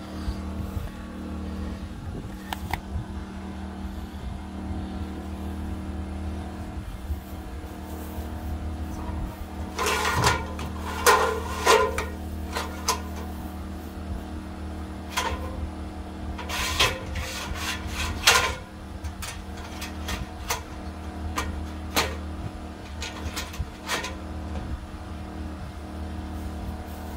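A motor drones steadily throughout. From about ten seconds in, a string of loud knocks and clatters comes and goes over it, the loudest around eighteen seconds in.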